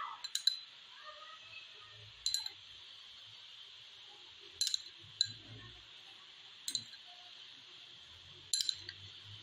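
A glass bowl clinking: several separate sharp clinks, a second or two apart, as zarda food colour is mixed in it and added over the biryani.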